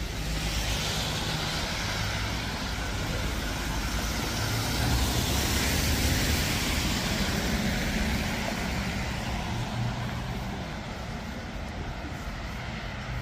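A car passing on a wet street: tyre hiss and road noise swell to a peak about five to seven seconds in, then fade.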